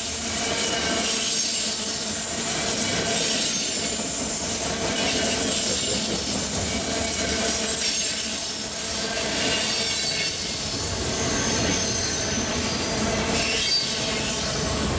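Loaded freight flatcars rolling past close by: a steady loud noise of steel wheels on rail, with thin high-pitched wheel squeals coming and going.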